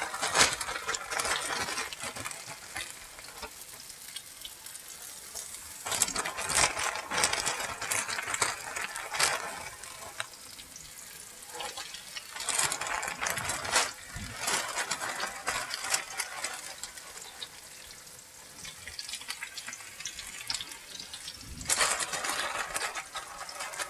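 Cornmeal-coated squash slices frying in hot oil in a skillet, with a steady sizzle. Several louder bursts come as more slices are shaken in from a plastic bag, with the bag crinkling.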